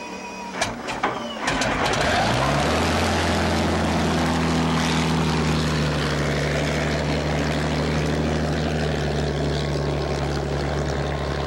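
The Allison V-12 engine of a vintage unlimited hydroplane: a few sharp cracks about a second in, then the engine revs up over about a second and runs steadily as the boat gets underway.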